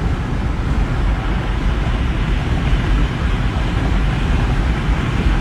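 Steady road and engine rumble of a car driving.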